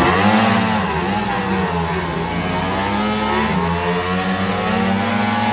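Two Ducati Panigale V4 motorcycles with V4 engines running at idle in the pit lane, the revs rising and falling a little.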